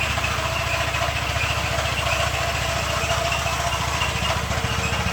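A motor running steadily at an even speed, with a fast low pulse and a faint steady whine.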